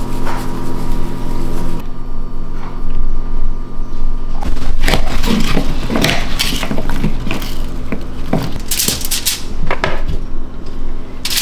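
Kitchen clatter: dishes, pans and utensils knocking and clinking in a run of short, irregular strokes, busiest in the second half, over a low steady hum.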